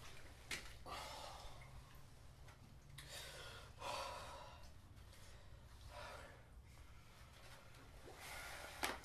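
A man's faint breathing, in slow breaths and sighs every second or two, with a single sharp click near the end.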